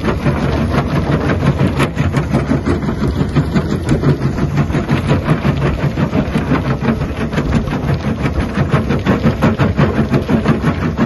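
Xcentric XC8 jaw crusher bucket on a Mecalac 8MCR excavator crushing demolition concrete: a dense, continuous clatter and crunch of concrete being broken, over the steady hum of the excavator's engine.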